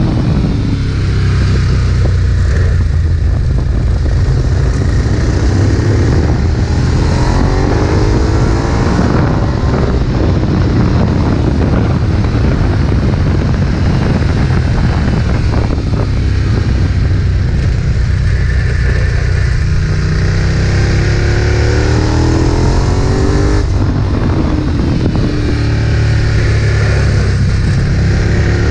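Ducati 1098's 1099 cc L-twin engine under hard acceleration on a race track, its pitch climbing again and again as it pulls up through the gears, with easing-off between the sweeps.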